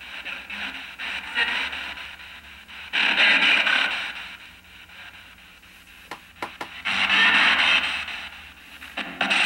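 P-SB7 spirit box sweeping through FM radio stations, played through a small amplifier: choppy bursts of radio static and hiss, loudest about three seconds and seven seconds in, with a few sharp clicks about six seconds in.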